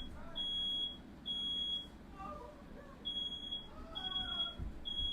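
Smoke alarm sounding its evacuation pattern: three high beeps, a pause, then three more. It has been set off by a fire in the house.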